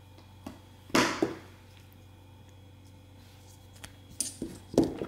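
Steel hex bits and nut drivers clicking against a plastic bit clip as they are handled and pulled out: a sharp click about a second in, then a quick run of clicks and taps near the end.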